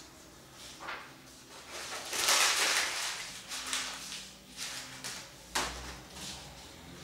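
A sheet of paper being crumpled and scrunched between the hands, crackling and rustling in bursts, loudest about two to three and a half seconds in. A single sharp knock comes a little past five and a half seconds.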